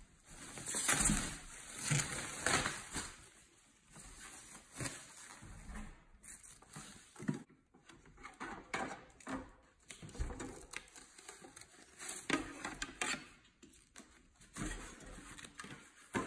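Plastic and foam packaging rustling and crinkling as a new air fryer is unwrapped, loudest in the first few seconds. Scattered short knocks and clatters from the fryer's basket and grill being handled come in between.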